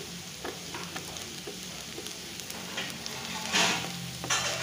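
Sliced onions sizzling in hot oil in a frying pan, stirred with a wooden spatula that taps and scrapes against the pan, as they fry toward golden brown. Two louder scrapes come in the second half.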